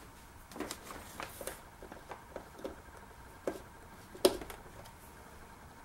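Small clicks and taps of plastic cord connectors and hose fittings being handled, with one sharper click about four seconds in as a connector is pushed into a socket on the back of the water ionizer.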